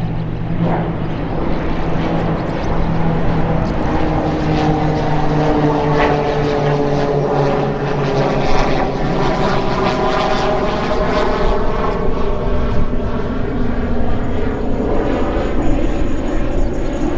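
Propeller aircraft flying over, its engine drone falling slowly in pitch as it passes.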